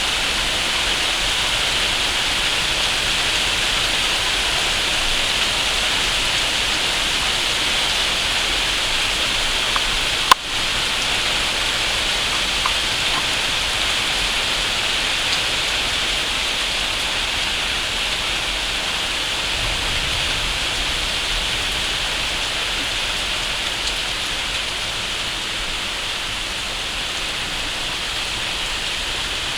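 Heavy rain falling steadily, a constant hiss. One sharp click about ten seconds in.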